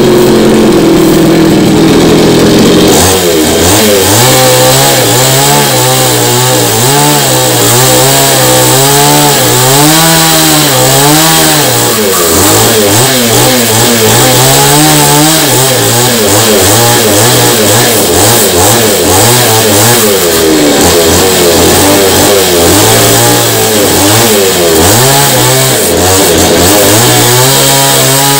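Two-stroke chainsaw running steadily, then from about three seconds in levelling the face of a trembesi (rain tree) root slab, its engine pitch rising and falling as the bar is swept back and forth across the wood.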